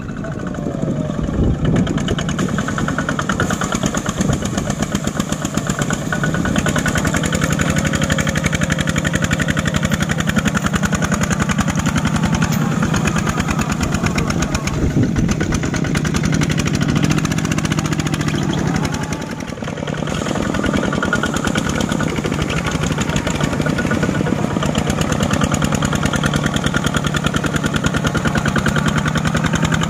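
Single-cylinder diesel engine of a two-wheel walking tractor chugging steadily with a rapid pulse, working under load as it drags a loaded rice trailer through deep mud and water.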